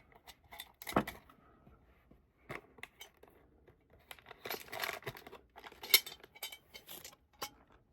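Small hard items being handled: scattered light clicks and taps, with a knock about a second in, a rustle around the fifth second and a sharp click near six seconds, as small doll hair ties and accessories go into a jewelry box.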